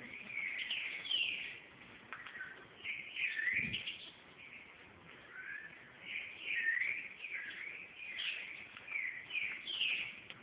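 Birds chirping in short bursts of quick rising and falling calls, with pauses between the bursts. There is a single dull bump about three and a half seconds in.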